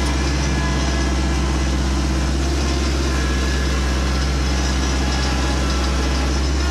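Engine of a ride-on tractor running steadily at an even speed as it drives, with a deep, constant hum.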